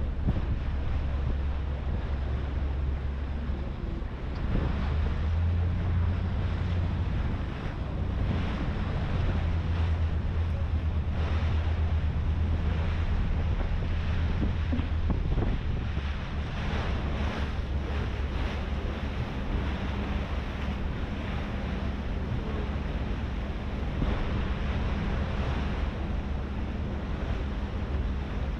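Harbour ferry under way: a steady low engine drone, with gusts of wind on the microphone and water rushing along the hull.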